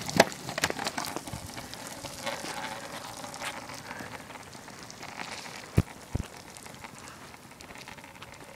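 Rain pattering and crackling on wet pavement, with two dull thumps close together a little past the middle.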